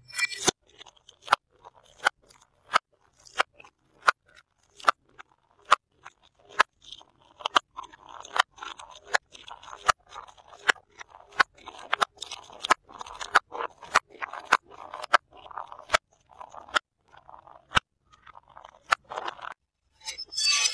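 Glass jars and cans tumbling down concrete steps: a long run of sharp knocks and clinks, one to two a second, with crunching as some glass jars break.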